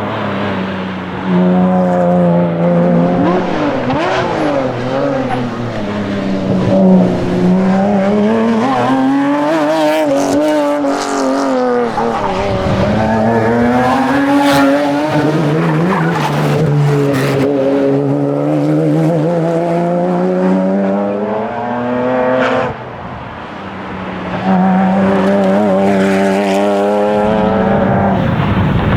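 Porsche Cayman's engine under hard competition driving, revs repeatedly climbing and falling through gear changes, with a brief lift-off and drop in engine note about 23 seconds in before it pulls hard again.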